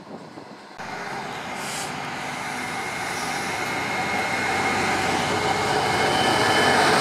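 Class 66 diesel freight locomotive hauling a loaded coal train on approach, its engine and wheels growing steadily louder as it nears, with a thin high whine over the rumble. For the first second a fainter freight-train rumble is heard before an abrupt cut.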